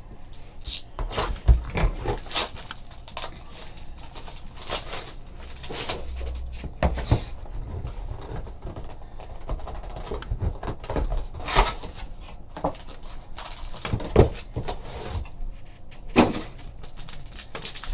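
Hands opening a sealed trading-card box and handling a foil card pack: irregular crinkling and rustling of plastic wrap, cardboard and foil, broken by sharp clicks and taps every second or two.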